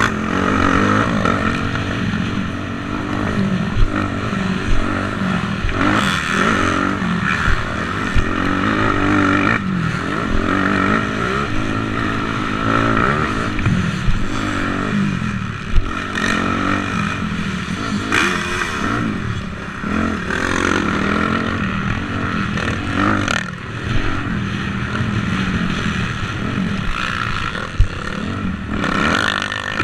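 250cc motocross bike engine revving up and down repeatedly as it is ridden around a dirt track, with a few sharp knocks.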